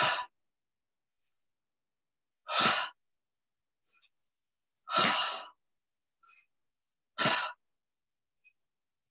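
A person's loud, breathy exhales through the mouth, four in all, about one every two seconds, each short and falling away, with silence between: paced breathing exercise with a sharp out-breath on each repetition.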